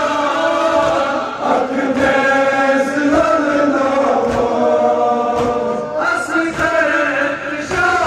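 Men chanting a Kashmiri nohwa, a Muharram lament, in unison. Thuds of chest-beating (matam) come roughly once a second.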